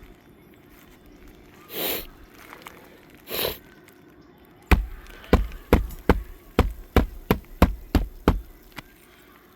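Hammer driving roofing nails into a shingle: about ten sharp blows, roughly three a second, starting about halfway through. Two short rushes of noise come before the blows.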